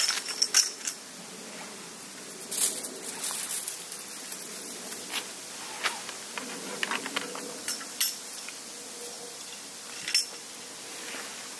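Irregular light clinks and clicks of metal cookware and utensils being handled, some ringing briefly. There is a cluster of them at the start and scattered ones after.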